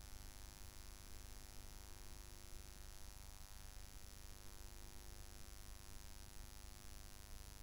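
Faint, steady electrical mains hum with a buzz of many even overtones and a constant hiss. There are no other sounds.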